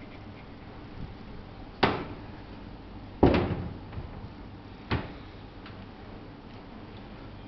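Three sharp knocks or clatters about a second and a half apart, the middle one the loudest with a brief rattle after it, over a low steady background.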